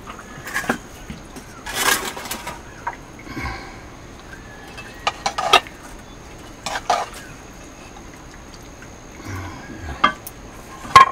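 Steel ladle scraping and knocking in a blackened wok while curry is served onto a steel plate: a series of separate metal scrapes and clinks, the loudest about halfway through and near the end.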